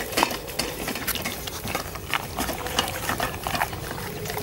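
Boxer dog licking and nosing at a stainless steel food bowl in a metal stand: a quick, irregular run of wet licks and small knocks of the bowl.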